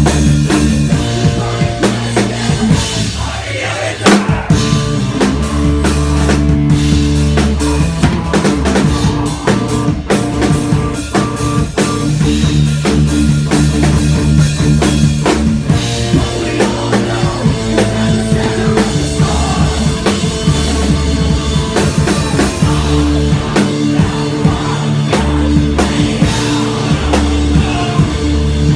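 Rock band playing live: drum kit pounding with dense cymbal and snare hits over sustained distorted guitar and bass notes. The low end drops out briefly about four seconds in, then the full band hits again.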